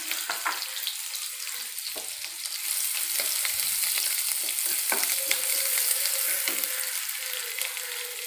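Chopped onion sizzling in hot oil in a non-stick kadai, stirred with a wooden spatula that scrapes and clicks against the pan now and then.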